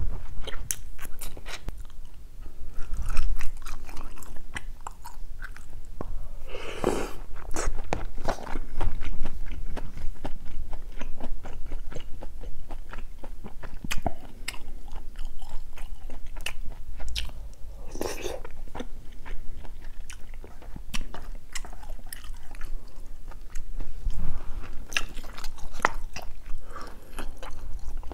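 Close-miked chewing and biting of spicy gopdori-tang stew with chewy beef intestine and noodles: wet mouth clicks and smacking, with a few longer wet sounds about 7 and 18 seconds in.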